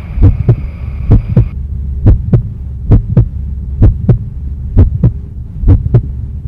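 A heartbeat-like beat of paired low thumps, about one pair a second, over a steady low hum.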